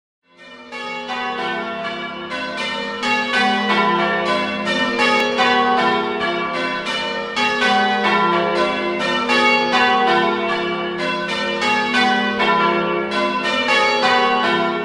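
Church bells ringing changes: an even, rapid succession of strikes, one bell after another, with the tones ringing on and overlapping. The ringing fades in at the very start.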